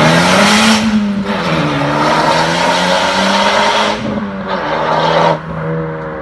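Honda Civic Type R FK8's turbocharged four-cylinder running through an Fi Exhaust catless downpipe and valved cat-back, pulling hard as the car drives away: the note climbs, drops at an upshift about a second in, then holds under load. About five seconds in it cuts back sharply as the throttle closes, and the lower note fades with distance.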